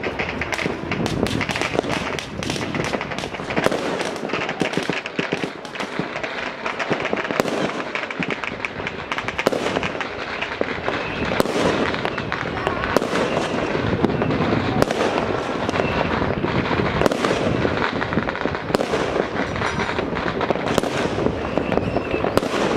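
Fireworks and firecrackers going off all across a town: a continuous crackle of many small bangs, very dense in the first few seconds, with louder single bangs every second or two after that.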